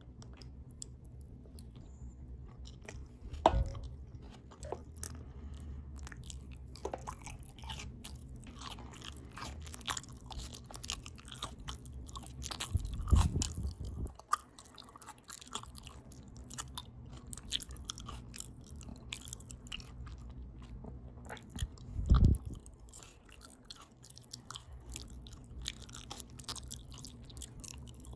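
Open-mouth chewing of a potato taco bowl (potatoes, ground beef, cheese, lettuce, tomato) close to the microphone: a steady stream of small mouth clicks. Three louder low thumps stand out, about three seconds in, near the middle and about three-quarters through.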